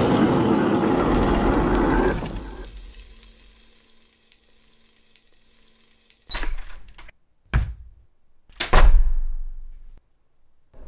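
Sound effects: a loud rushing noise that dies away over about two seconds, then three separate thuds a little over a second apart, the last the loudest.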